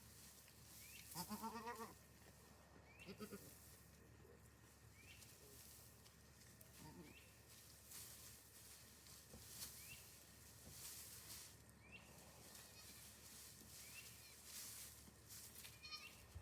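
Goat bleating: one loud bleat about a second in, then two quieter, shorter bleats around three and seven seconds in.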